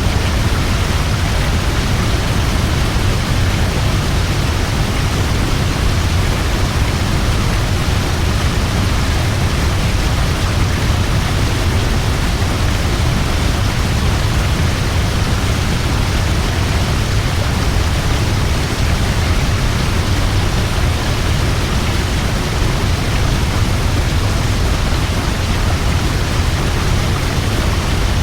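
Large waterfall plunging over a cliff into a river: a steady, loud rush of falling water, deepest in the low end and unchanging throughout.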